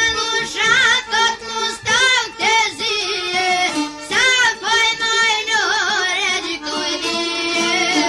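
Albanian folk song: a high lead melody with vibrato and quick ornaments, played over a thinned backing with no bass beat.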